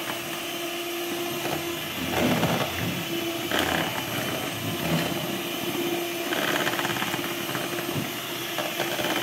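Electric hand mixer running steadily, its beaters whipping eggs and sugar in a glass bowl, with a constant motor hum.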